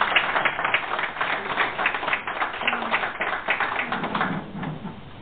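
A small group of people applauding, a quick run of hand claps that thins out and fades away near the end.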